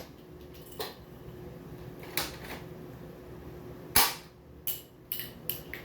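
Toy M32 grenade launcher being fired and worked: a series of short, sharp pops and clicks, the loudest about four seconds in.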